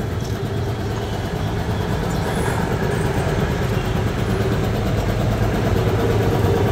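Belt-driven 3 HP double-piston air compressor, powered by a 2 HP Godrej single-phase electric motor, running steadily with an even mechanical hum.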